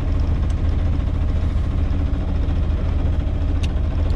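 Sailboat's inboard auxiliary engine running steadily, a low even drone, as the boat motors in a calm with no wind to sail. A couple of faint light clicks sit over it.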